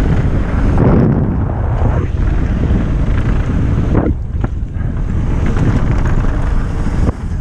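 Loud wind buffeting on a GoPro's microphone during a fast mountain-bike descent: a dense low rush with brief dips about two and four seconds in.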